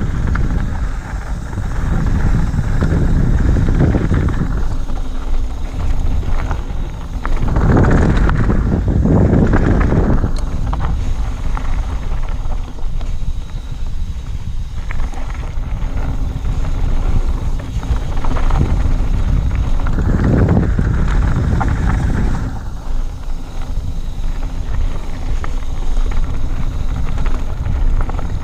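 Loud wind noise on the camera microphone during a fast mountain bike descent, with bike tyres rolling over a gravel and dirt trail. The noise swells hardest about eight to ten seconds in and again around twenty seconds in.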